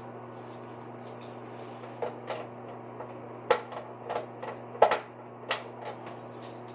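Hands tightening a bidet water supply line's compression fitting and handling its plastic parts: a string of short knocks and clicks starting about two seconds in, two of them louder near the middle, over a steady low hum.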